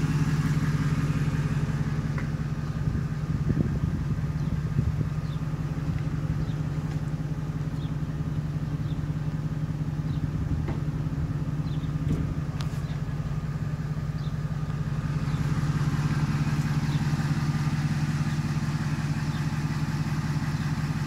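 Supercharged 5.4-litre V8 of a 2007 Roush Stage 2 Ford F-150 idling steadily. It sounds duller for a stretch in the middle, heard from inside the cab.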